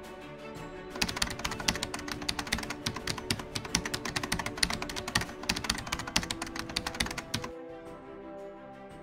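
Rapid computer-keyboard typing sound effect over background music with held tones. The clicking starts about a second in and stops suddenly near the end, leaving only the music.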